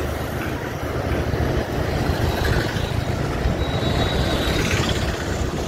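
Steady low rumble of wind buffeting the microphone on a moving motorcycle, with the engine and tyre noise underneath.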